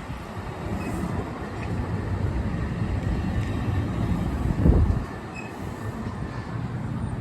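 A freight train rolling past, a steady low rumble of wheels on rail. A brief louder thump comes about two-thirds of the way through.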